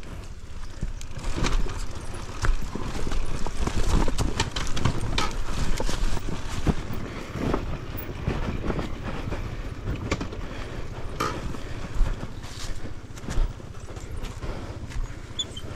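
KTM enduro dirt bike ridden slowly over rough forest singletrack: the engine running at low revs under a run of uneven knocks and rattles from the bike going over rocks and roots.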